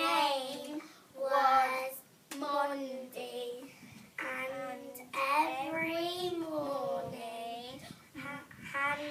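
Two young girls singing together in short sung phrases with brief pauses between them.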